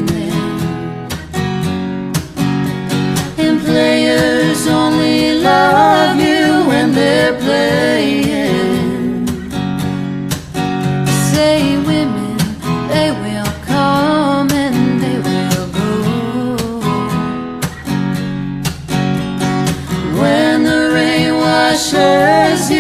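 A song playing: a sung vocal melody over strummed acoustic guitar.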